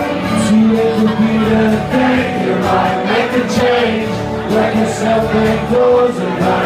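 Live band playing a song on acoustic and electric guitars.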